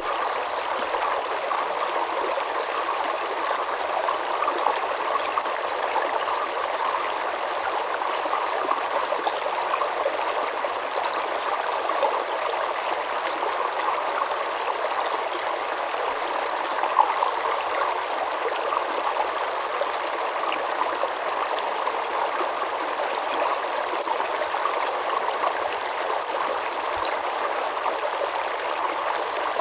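A river flowing steadily over rocks: an even rushing and babbling of water with small splashes throughout.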